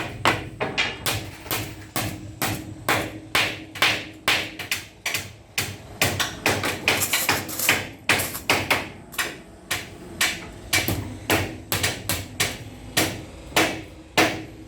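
Hammers driving wire nails into split bamboo slats: a steady run of sharp strikes, about two to three a second, unevenly spaced.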